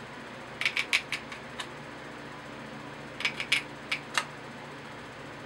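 Tin snips cutting thin sheet metal: two runs of several crisp clicking snips, one about half a second in and another about three seconds in.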